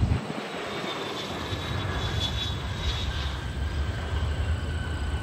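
Jet engines of an Embraer E145 regional jet, a steady rumble with faint thin whining tones coming in about halfway through.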